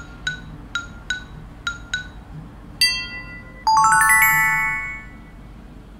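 Cartoon sound effects: six short, pitched, bell-like taps in pairs, then a bright ding about three seconds in, followed by a shimmering cascade of chime tones that rings for over a second and fades.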